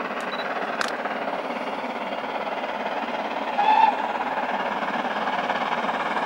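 GWR Hall class 4-6-0 steam locomotive Rood Ashton Hall approaching in the distance, its steady exhaust and running noise growing slowly louder. A brief high note sounds a little past halfway.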